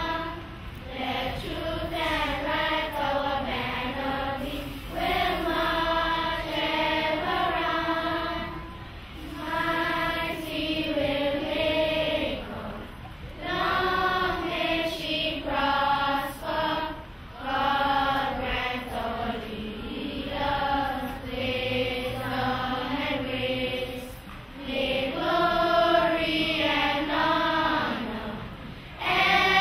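A crowd of schoolchildren singing Anguilla's national song together, in long sung phrases with short breaks between them.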